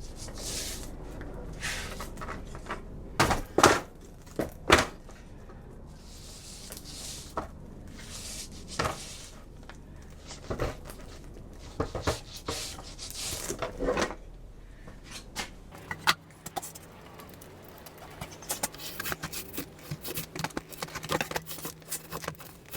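Roller being worked over beeswax-coated plastic frame foundation and against a wax roaster: soft swishes of rolling broken by sharp knocks and clicks as the roller and frame are handled.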